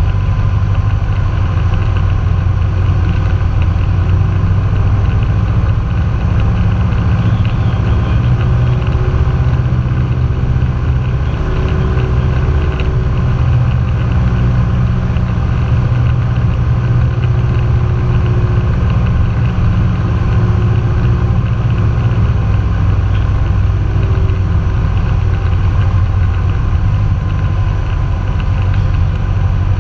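Cessna 172's engine and propeller droning steadily, heard inside the cabin, through final approach and touchdown.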